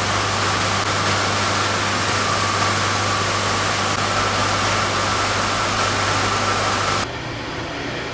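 Steady loud noise of heavy machinery in a heat and power plant, with a constant low hum and a faint steady whine above it. It cuts off abruptly about seven seconds in, leaving quieter machinery noise.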